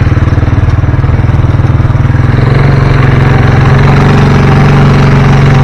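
A small engine running steadily and close, with a fast even pulse, getting a little louder and slightly higher in pitch about halfway through.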